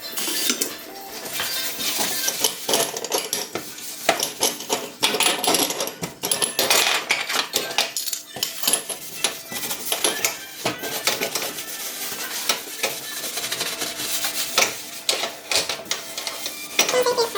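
Dishes and containers clinking and clattering as they are handled, in many irregular knocks and clicks.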